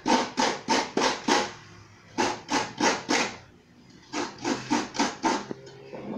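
Coconut half scraped against the serrated blade of a stool-mounted coconut grater (kudkuran), in quick rasping strokes about five a second. The strokes come in three runs with short pauses between.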